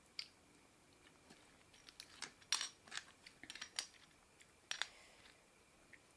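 Sharp crackles and clicks of someone eating seafood up close, in a scattered run. The loudest come about two and a half seconds in and again just before five seconds.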